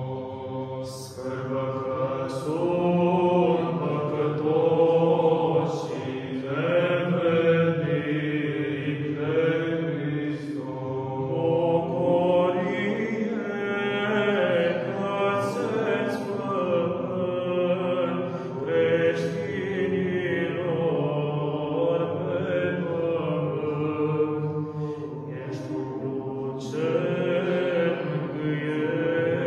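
Small male choir of Orthodox monks singing Byzantine chant a cappella. Several voices move through the melody over a steady low held note.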